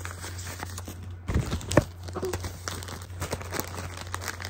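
Small packaging being handled and opened: crinkling and tearing with scattered light clicks, a few louder ones about a second and a half in.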